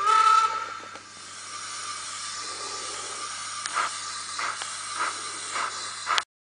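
Sound decoder of a DCC sound-fitted N gauge steam locomotive playing through its small onboard speaker: a short whistle blast, then a steady steam hiss, then from about four seconds in slow, evenly spaced chuffs about every 0.6 s. The sound cuts off suddenly near the end.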